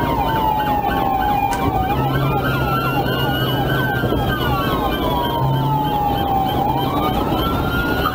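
Two police car sirens sounding at once during a highway pursuit. One is a slow wail rising and falling over a few seconds; the other is a rapid yelp of many short chirps a second. Both run over a steady low hum.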